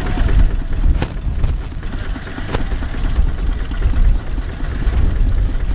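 Tractor engine running with a deep, uneven rumble, two sharp knocks about a second and two and a half seconds in.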